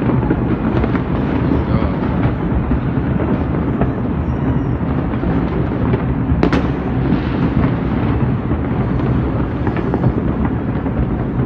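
Many distant fireworks going off at once, a continuous rumble of overlapping bangs and crackles, with one sharper bang about six and a half seconds in.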